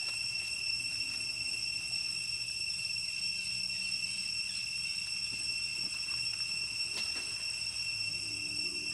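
Steady, continuous high-pitched drone of insects in the forest, with a couple of faint sharp ticks about seven seconds in.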